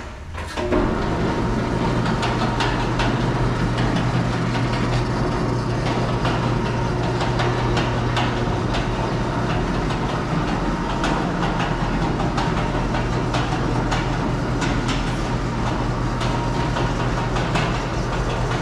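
Two-post vehicle lift running as it lowers: a steady electric-motor hum with a constant low tone and a scatter of small clicks, starting about a second in.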